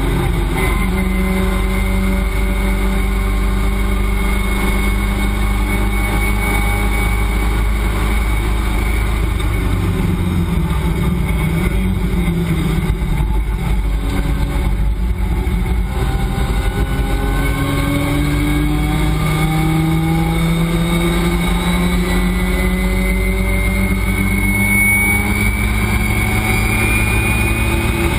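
Race car engine at full racing speed, heard from inside the cockpit. Its note falls around the middle as the car slows for a corner, then climbs steadily as it accelerates hard again.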